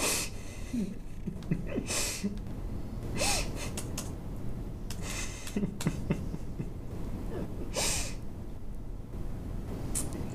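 A person's short breathy bursts, about six of them a second or two apart, with faint small squeaky sounds in between, over a steady low hum.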